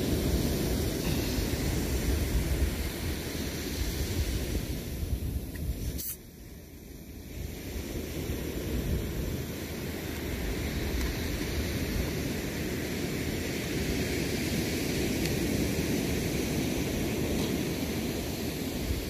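Steady rushing noise of wind on the microphone and sea surf, heaviest in the low rumble. About six seconds in there is a click, after which the noise drops away and builds back up over a few seconds.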